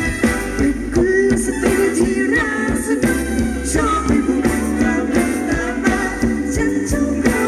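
Phetchaburi ramwong band music played loud through amplification, with a steady drum beat under a melody line.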